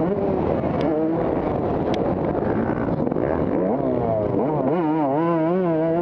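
Motocross bike engines revving, the pitch rising and falling with the throttle; from about four seconds in one engine's note wavers quickly up and down.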